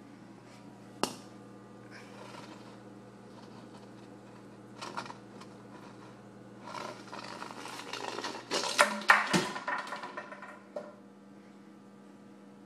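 Steady electrical mains hum, with a sharp click about a second in and, in the second half, a stretch of rustling and several knocks from the phone being handled.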